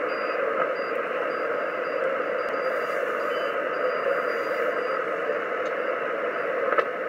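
Steady static hiss from a Kenwood TS-450S HF transceiver receiving single sideband (USB), heard through the narrow voice passband of the receiver between air traffic control transmissions. A single click comes near the end.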